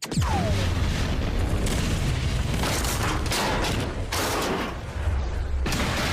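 Train-crash sound effects: a sudden start with a short falling whistle-like tone, then a continuous heavy rumble broken by several sharp blasts.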